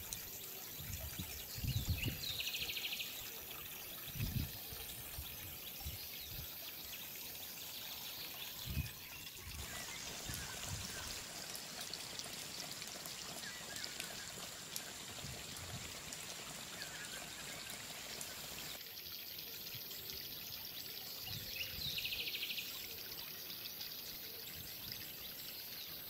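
Small stream of water trickling and running over rocks, a steady hiss. A few low thumps come in the first seconds, and short high chirps twice.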